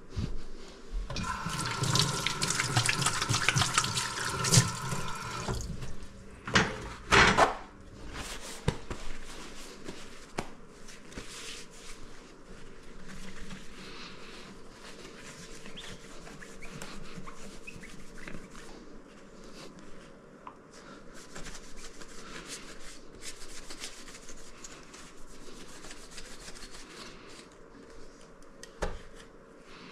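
A steady hiss like running water for the first few seconds, then two sharp knocks. After that comes a soft, irregular rubbing as a cloth is wiped over the glass panels of a stained-glass light shade.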